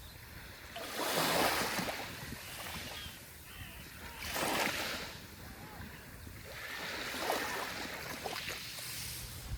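Small sea waves breaking and washing up a shore, the surf rising and falling in three swells.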